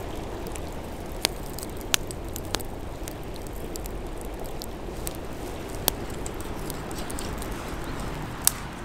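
Open wood fire crackling: five sharp pops of burning wood spread over several seconds, over a steady low rumble.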